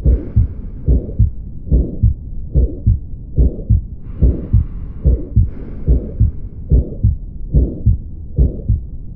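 Heart sounds heard by auscultation: a steady lub-dub, pairs of low thumps at about 72 beats a minute. A higher hiss rises and fades twice.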